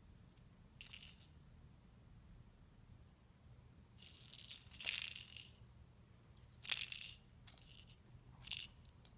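A cat batting and mouthing small toys on a hard floor, making a few short rattling bursts. The loudest come around five seconds in and again near seven.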